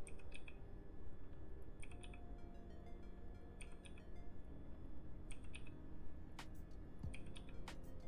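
Computer mouse and keyboard clicking, in pairs of quick clicks about every second and a half to two seconds, with two sharper single clicks near the end, over a low steady hum.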